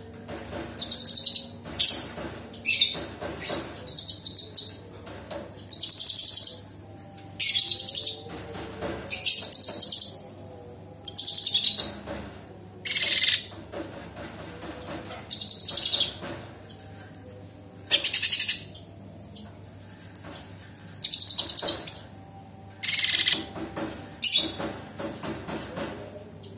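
A cucak cungkok leafbird singing in sharp, harsh bursts: short, loud, fast-rattling high phrases, some falling in pitch, repeated about every one to two seconds with brief pauses between.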